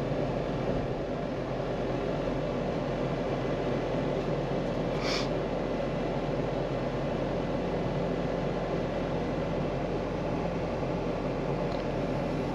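Steady in-cabin drive noise of a 1966 Ford Mustang on the road, with engine and road drone heard from inside the car. One brief, faint higher sound occurs about five seconds in.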